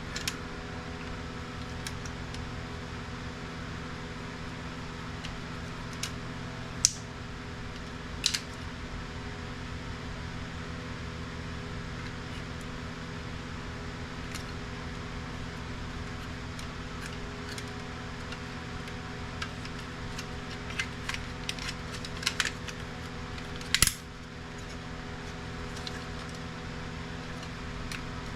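Scattered sharp clicks and clinks of plastic and metal parts and hand tools as an HP inkjet printer is taken apart, with single loud clicks about seven and eight seconds in and a quick cluster later, the loudest near the end. A steady hum runs underneath.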